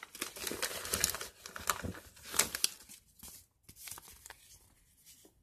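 Plastic medicine packaging crinkling as it is handled: rapid crackles for about three seconds that thin out and stop a little past four seconds.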